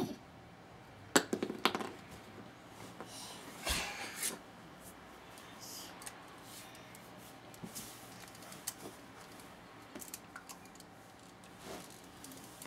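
Sharp little clicks and taps from small objects being handled, two loud ones about a second in, with a stretch of soft rustling in the middle and fainter clicks later.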